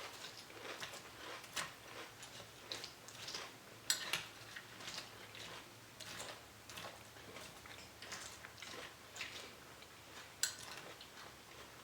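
Chex peanut butter cereal crunching as it is chewed: a string of soft, irregular crunches and crackles.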